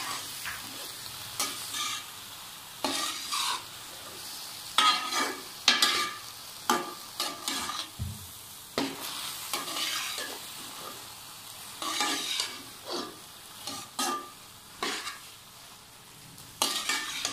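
Slotted metal spatula scraping and stirring okra, onions and tomatoes frying in oil in a metal pan, in short irregular strokes about once a second, with a faint sizzle between them on the low flame.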